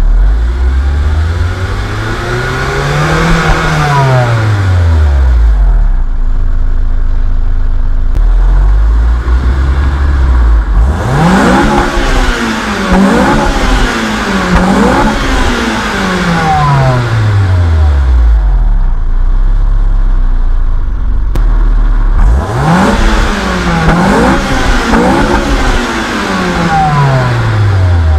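Honda Accord Euro R's K20A four-cylinder, breathing through its stock muffler with a Mugen exhaust manifold and catalytic converter, free-revved at standstill. From idle it climbs slowly and falls back once. Then twice more it is blipped in bursts of several quick throttle stabs, each time dropping back to idle.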